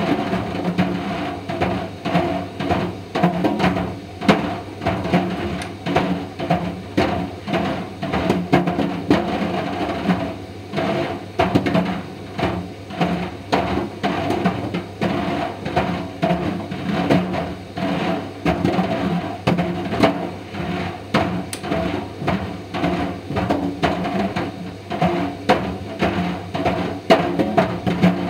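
Indesit IDV 65 tumble dryer running with a steady motor hum, while Mister Steamy plastic dryer balls tumble in the drum and knock against it irregularly, several knocks a second.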